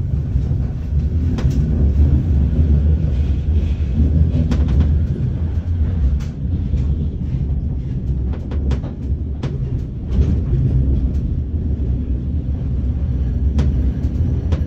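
Metrolink light rail tram running, heard from inside the passenger car: a steady low rumble with scattered clicks and knocks.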